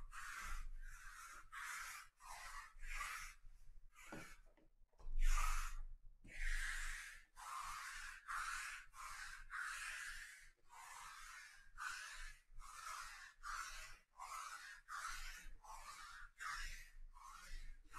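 Rhythmic rubbing, about two short hissing strokes a second, kept up throughout.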